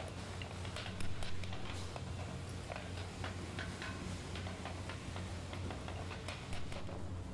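Irregular light clicks and taps of hand work on a carved wooden plate as small inlay pieces are set into it, with one louder knock about a second in, over a steady low hum.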